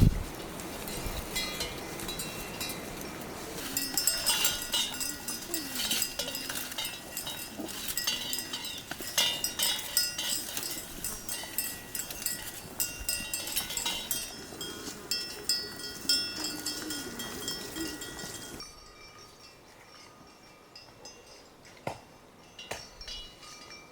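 Livestock bells clinking and ringing over and over as the herd moves, with a few short calls mixed in. The bells drop away abruptly about nineteen seconds in, leaving a quieter background.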